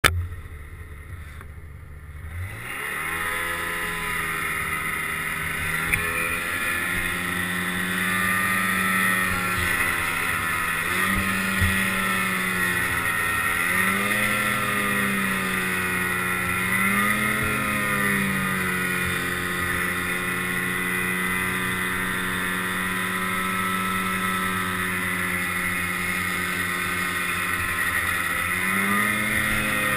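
Snowmobile engine running under throttle while riding through snow. It picks up sharply about two seconds in, then its pitch swells and eases several times as the throttle is worked, with a lift again near the end.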